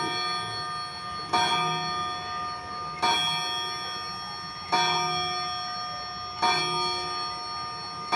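Citizen quartz hour-strike wall clock striking eight o'clock: small hammers hit its metal chime rods. The strikes come about every 1.7 seconds, and each one rings with several tones and fades before the next.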